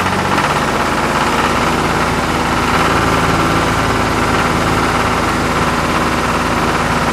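Small electric motor and gears of a homemade toy tractor running steadily as it drives, a fast even buzz with a whir.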